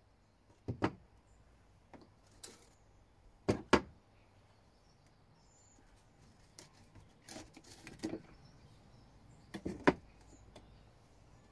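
Scattered sharp knocks and clicks of hands handling and working old gauges loose from a moulded boat dashboard, some coming as quick double knocks.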